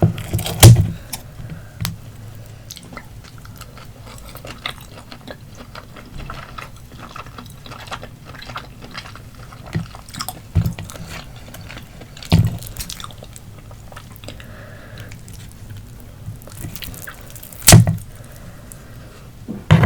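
Close-miked chewing of grilled octopus: wet, sticky mouth clicks and smacks, with a few louder knocks scattered through, about a second in, near 11 and 12 seconds, and near 18 seconds.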